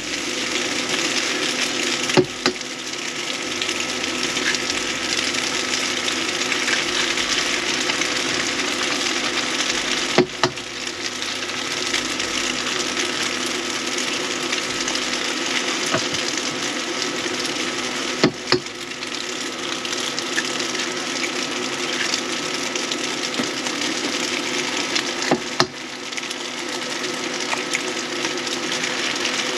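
Bacon, onions, noodles and eggs sizzling steadily as they fry in margarine in a pan, over a steady low hum, with four brief clicks about eight seconds apart.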